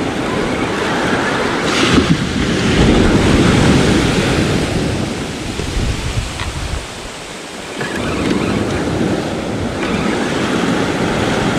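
Ocean surf breaking close by and washing up the sand, swelling and easing, with wind buffeting the microphone.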